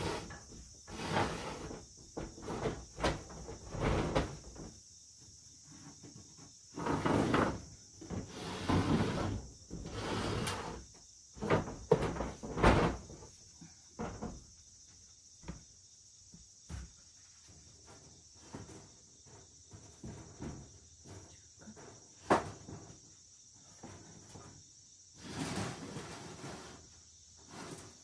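Sliding storm shutters (amado) and windows being pushed open by hand: a run of rattling slides of about a second each, mixed with knocks and clacks as the panels catch and stop.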